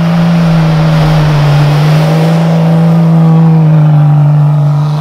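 Jeep Cherokee XJ driving past through snow: a steady engine drone with tyre noise on the snow, loudest around three to four seconds in and fading near the end.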